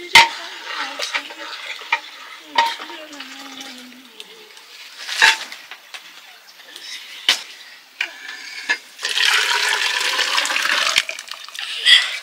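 A metal ladle clinking and knocking against aluminium cooking pots, several sharp single strikes spaced a second or two apart, as pots on a wood fire are stirred. About nine seconds in comes a steady rushing hiss of about two seconds, like liquid pouring or sizzling in a hot pot.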